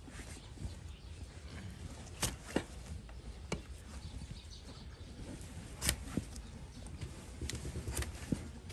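A long-handled hoof-trimming spade cutting and scraping at a donkey's overgrown hoof horn, giving a few sharp, irregular clicks as the blade meets the hard hoof, over a low rumble.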